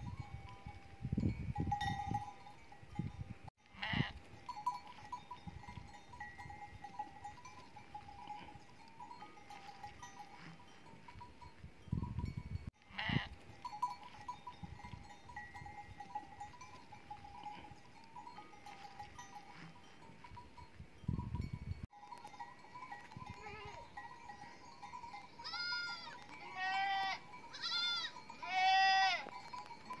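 A flock of sheep on the move with their bells ringing steadily, broken by a few short low rumbles. In the last few seconds several sheep bleat, one call after another.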